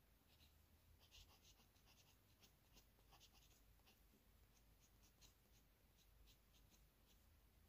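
Fountain pen nib scratching faintly on paper in a run of quick, short strokes, as when sketching fine hatched lines. The strokes come thick and fast for the first few seconds, then more sparsely.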